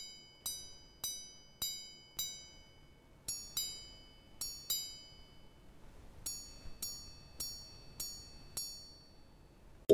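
Small bright gongs struck one at a time, each ringing out briefly, in three groups: five strikes on a lower tone, then a few quick high-low pairs, then five strikes on a higher tone. This is the striking pattern of a minute repeater watch chiming the time.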